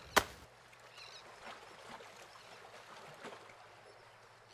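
Plastic sand moulds and moulded sand being handled on a plastic sheet: one sharp knock just after the start, then faint light taps and rustles over a low hiss.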